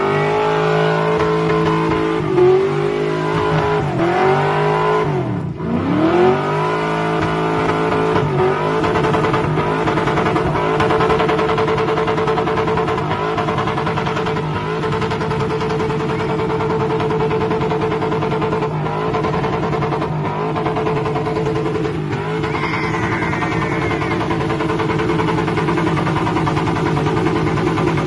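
Car doing a burnout: the engine is revved up and down several times, then held at high revs for about twenty seconds while the spinning rear tyres squeal and smoke on the pavement.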